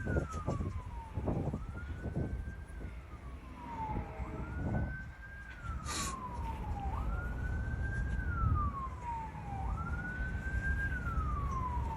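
Emergency vehicle siren sounding a wail, its pitch sweeping quickly up and then sliding slowly down, repeating about every three seconds. Low knocks and clicks come and go beneath it.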